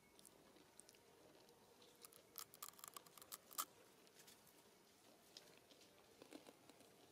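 Faint, crisp clicks and crunches of a macaque chewing food, bunched in a quick run about two seconds in, then a few scattered ones; otherwise near silence.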